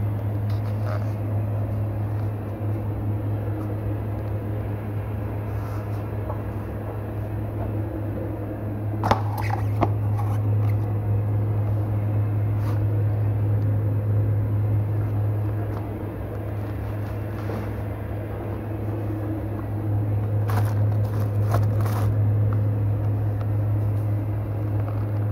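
Steady low mechanical hum, with a couple of sharp clicks about nine and ten seconds in and a few more around twenty-one seconds in.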